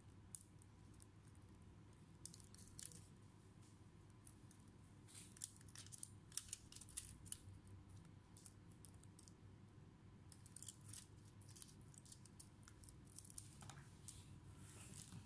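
Faint small clicks and crinkles of fingers handling the flex cables, connectors and plastic film inside an opened laptop, in clusters, busiest around the middle and again near the end.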